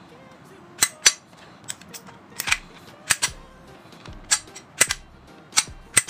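Walther P99 DAO CO2 airsoft pistol's action being worked by hand: a dozen or so sharp mechanical clicks, starting about a second in and often coming in quick pairs.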